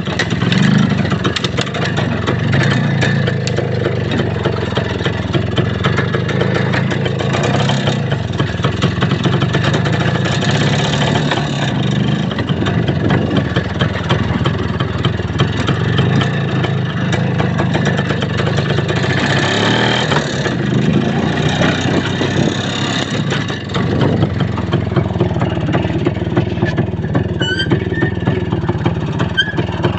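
Vehicle engine running on the move, its pitch rising and falling several times as it speeds up and slows, with steady rattling and knocking over it.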